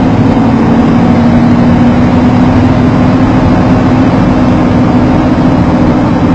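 Steady vehicle engine and road noise picked up by a dashcam inside a vehicle, with a constant low hum that does not rise or fall.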